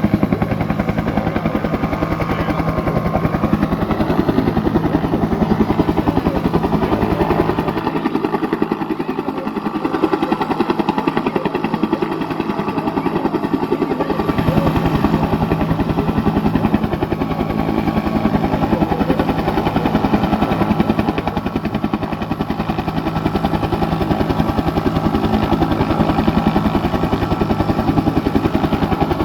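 Bell UH-1 "Huey" helicopter running on the ground: a steady engine drone with the rapid, even beat of its turning rotor. The deepest part of the beat thins for a few seconds about a third of the way in, then returns.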